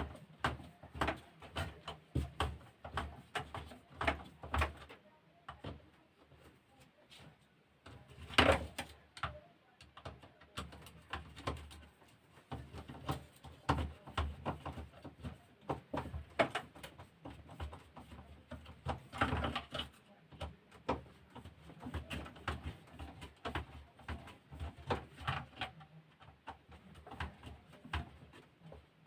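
Irregular clicks, taps and knocks of a battery sprayer's pump parts being handled and fitted together by hand, with two louder knocks about eight and nineteen seconds in. There is no motor running.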